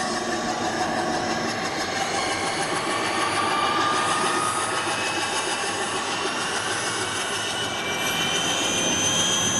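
Radio-controlled scale Mil Mi-24 Hind model helicopter starting up on the ground: a steady mechanical whine with several tones rising in pitch as the rotors spin up, climbing most clearly near the end.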